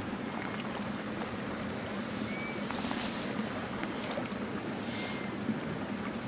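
Shallow lake water lapping and sloshing softly at the shore as a pike is held in it by the tail, with a few small splashes, under steady wind noise on the microphone.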